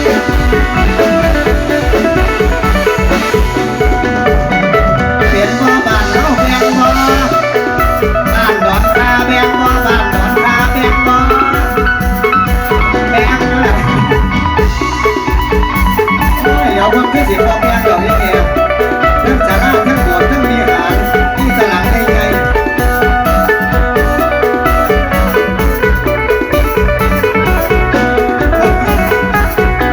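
Loud Isan folk band music: a steady drum-kit beat under a bright, busy plucked-string melody.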